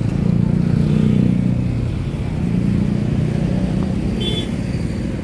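Motor traffic passing, a low engine hum that swells about a second in and again around three seconds, with a brief high chirp near four seconds.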